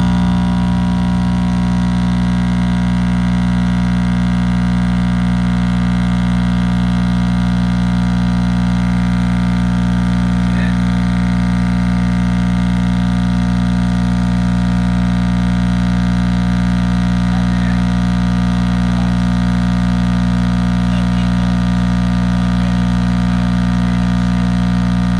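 Cheap car subwoofer wired straight to household mains power, its cone driven at the mains frequency and giving out a loud, steady buzzing hum that does not change or cut out.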